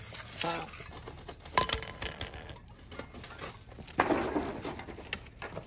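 Scattered clicks and taps of hand tools working wet concrete, with a louder rough scraping rush about four seconds in.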